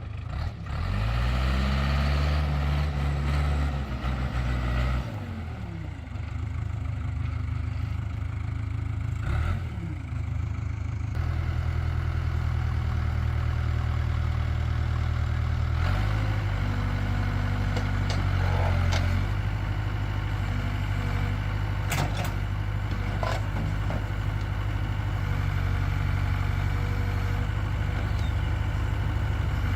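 A 1988 Case 580K loader backhoe's four-cylinder diesel engine running under work, its speed rising and falling several times, with a few sharp clanks in the second half.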